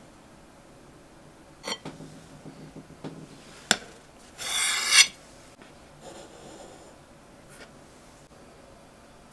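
Brief handling noises: a couple of clicks, then a short rasping scrape about half a second long, the loudest sound here, and a faint click near the end.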